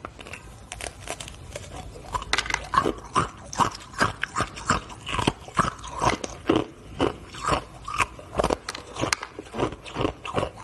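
Hard frozen ice being bitten and chewed close to a lapel microphone: a quick run of sharp, crisp crunches, about two to three a second, picking up about two seconds in.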